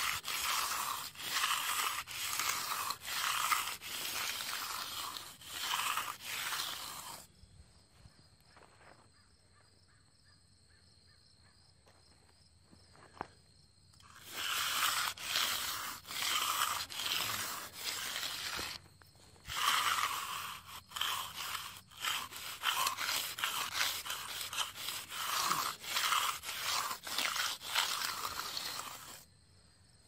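Steel hand edger scraping along the edge of fresh concrete in repeated back-and-forth strokes, about one a second, forming the rounded slab edge. The strokes stop for several seconds in the middle, then start again.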